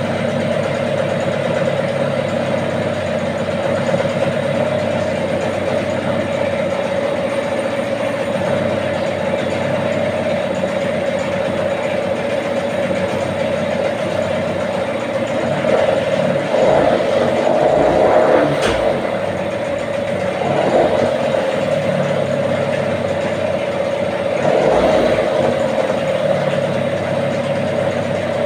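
Gladiator 9.9 hp outboard motor running at low speed, steady at first, then swelling and dipping unevenly several times over the second half. The uneven running is the sneezing misfire that the owner says makes the motor stall.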